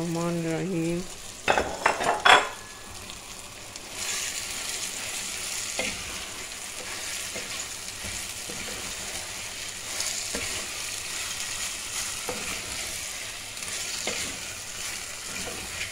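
Marinated minced meat sizzling steadily in hot oil in a clay pot, stirred with a wooden spatula that knocks lightly against the pot. A few sharp clatters come about two seconds in, and the steady sizzle starts about four seconds in.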